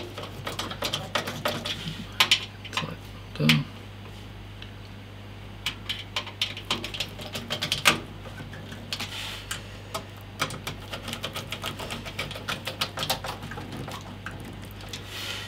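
Hand screwdriver driving the power supply's mounting screws into a metal PC case, in runs of quick small clicks with a few light knocks.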